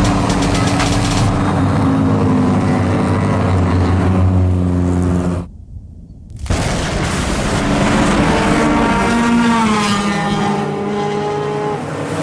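Racing car engine running hard at high revs, its note steady at first, then cut off for about a second halfway through; afterwards the engine note rises and falls as the car accelerates and lifts off.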